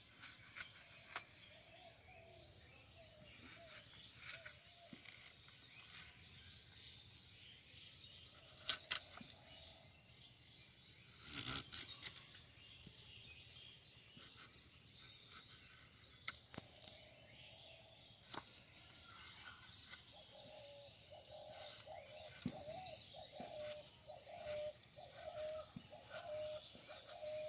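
Faint bird chirping, with a dove cooing over and over in the last several seconds, and a few scattered sharp knocks and clicks.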